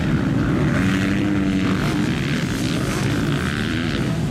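Several motocross bikes' engines revving together in a loud, continuous drone, with pitch that rises and falls.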